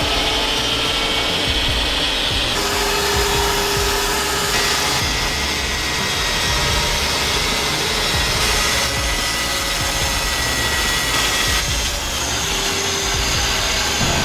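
Power saw cutting lengthwise through a log to make planks, a steady dense cutting noise with a faint whine, shifting abruptly several times.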